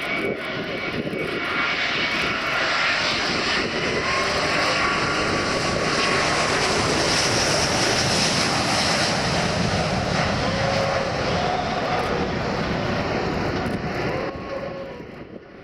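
An Airbus A350 XWB airliner flying past on its twin Rolls-Royce Trent XWB turbofans. The rushing jet noise swells over the first few seconds, is loudest around the middle, and fades near the end, with faint tones sliding in pitch as it goes by.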